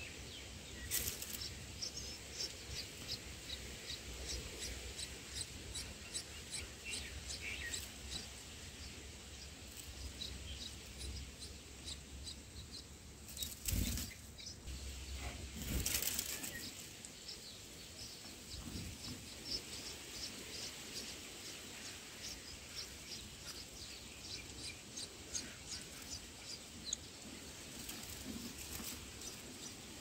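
Red-whiskered bulbul's wings flapping in two brief bursts, about two seconds apart around the middle, as it flies in to the nest. Short, high bird chirps repeat several times a second throughout.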